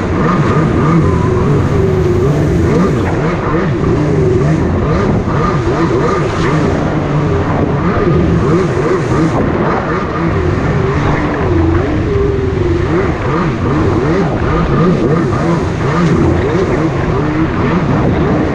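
Jet ski engine running under way, its pitch wavering up and down as the throttle and load change, over a steady rushing noise.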